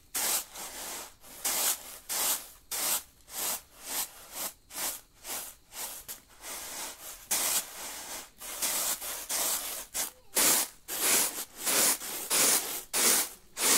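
Hand-milled cracked soybeans being tossed and shaken in woven bamboo winnowing trays, a rhythmic swish of grain sliding across the weave about twice a second. This is winnowing, separating the husks from the broken beans.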